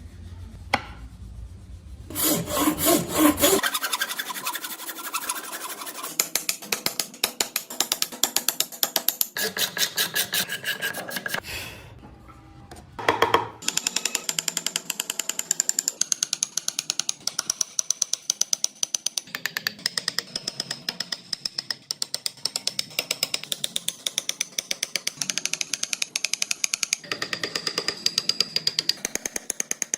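Hand tool working wood in quick, repeated rasping and scraping strokes, with a short pause about halfway through.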